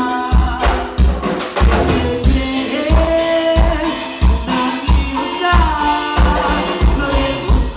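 A Latin pop song playing, with a steady bass drum beat about twice a second under a melodic lead line.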